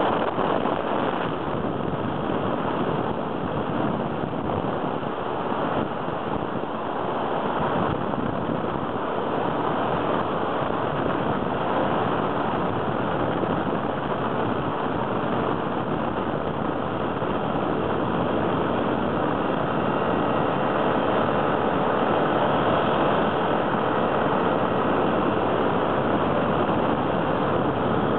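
Steady, loud rush of wind over the microphone in flight in an open weight-shift aircraft. The noise swells slightly in the second half.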